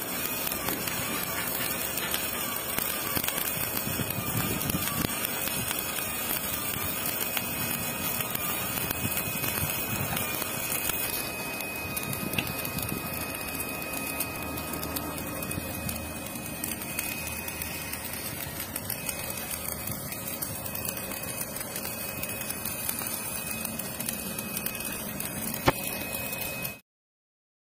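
Stick-welding arc crackling and sizzling as an electrode burns along a steel pipe joint, for roughly the first ten seconds. After that the crackle thins to background noise with a faint steady high tone, and the sound cuts off abruptly near the end.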